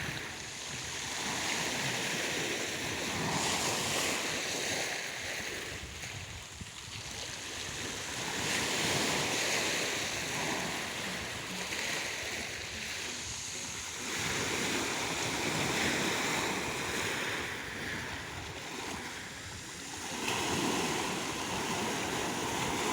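Black Sea waves washing onto the shore, the surf swelling and easing every five or six seconds.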